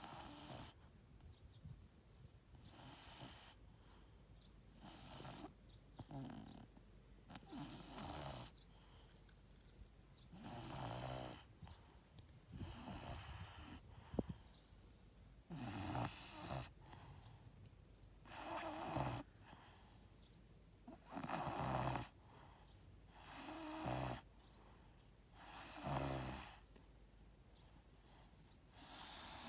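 English bulldog snoring in its sleep: a rasping snore on each breath, about every two to three seconds, growing louder about a third of the way in. A single sharp click about halfway through.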